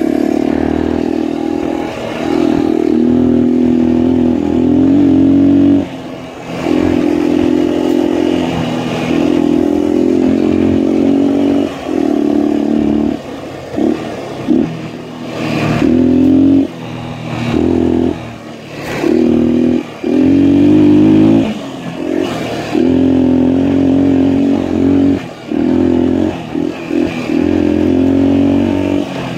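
Honda XL250's single-cylinder four-stroke engine pulling under throttle on a trail ride. The throttle is shut and reopened again and again, so the engine note drops away and comes back about a dozen times, most often in the second half.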